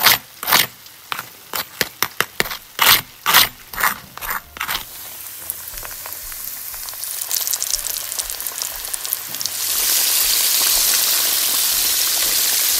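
About a dozen sharp, crisp clicks over the first five seconds. Then chicken pieces frying in hot oil: a sizzle that builds and becomes loud and steady about ten seconds in.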